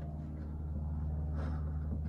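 Steady low hum, with a faint brief rustle of handling about one and a half seconds in.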